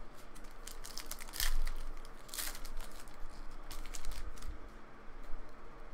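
Trading cards and foil pack wrappers being handled by hand: rustling with scattered light clicks and two brief swishes early on.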